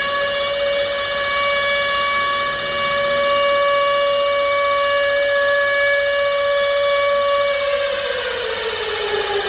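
Civil defense siren wailing at a steady pitch, then winding down with a falling pitch near the end, sounding a nuclear attack warning.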